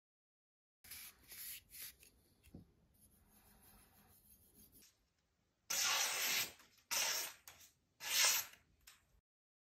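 A fingertip rubbing oil along a forged steel kitchen knife blade, faint, then a forged steel kitchen knife slicing through a hanging sheet of paper in three quick, louder cuts about a second apart.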